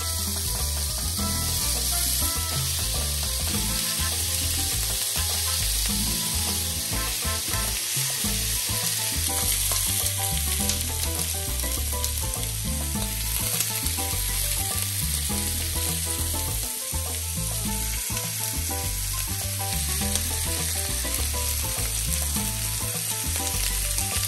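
Bacon strips and halved garlic cloves sizzling steadily on a ridged grill pan over maximum heat.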